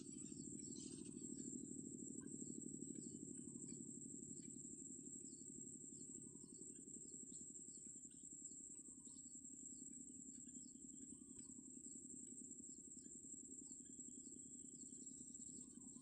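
Faint outdoor ambience: a steady high-pitched insect trill, typical of crickets in grass, with short high chirps scattered throughout over a low steady rumble.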